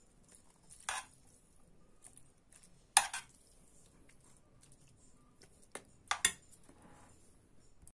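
A metal spoon clinking against a frying pan while fried onion, carrot and bell pepper are spooned into a paper cup: four sharp clinks, the loudest about three seconds in.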